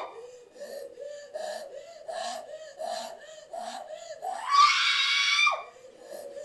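A woman's voice giving short, rhythmic cries or grunts about twice a second, then one long, loud, high scream a little over a second long, after which the short cries resume.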